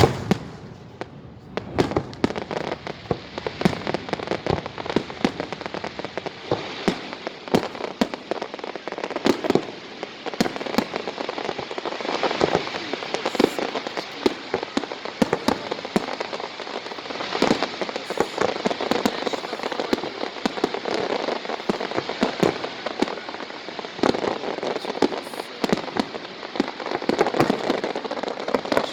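Fireworks display going off continuously: a dense, rain-like crackling with many sharp bangs and pops, some louder than others.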